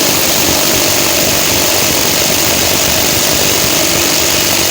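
Ingco 300 Nm impact wrench hammering continuously at a wheel nut torqued to 210 Nm, trying to break it loose: a loud, steady, rapid rattle of hammer blows. This is the nut the wrench struggles with, near the limit of its power.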